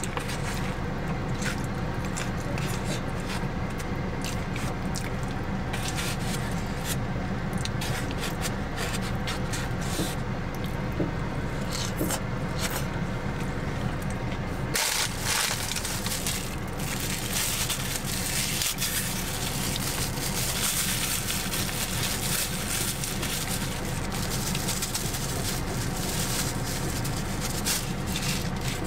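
Steady low hum and hiss inside a car cabin, with close, wet chewing and eating sounds. The hiss grows brighter about halfway through.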